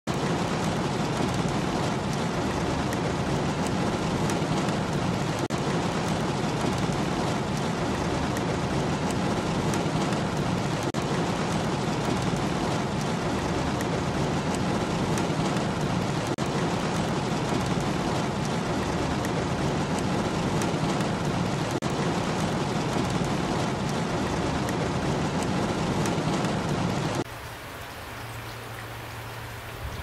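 Heavy rain falling on a car's roof and windows, heard from inside the car as a dense, steady sound with plenty of low weight. About 27 seconds in it cuts abruptly to quieter, lighter rainfall with a steady low hum under it.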